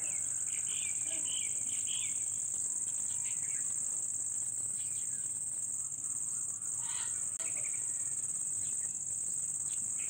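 Steady, high-pitched insect chorus, with short bird chirps over it: a cluster about a second in and another about seven seconds in.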